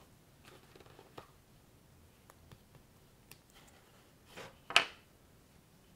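Hands building with knock-off LEGO-style plastic bricks and Technic parts: scattered light plastic clicks and taps, then two louder bursts of plastic handling near the end, the second the loudest.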